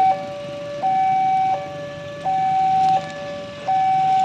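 Electronic railway level-crossing alarm sounding, switching back and forth between a single higher tone and a lower two-note chord, each held about three quarters of a second, the single tone being the louder. A train is due at the crossing.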